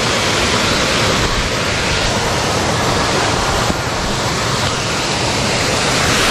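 Water rushing over a small seasonal waterfall that the rains have filled: a loud, steady rush of falling water that dips slightly a little past halfway.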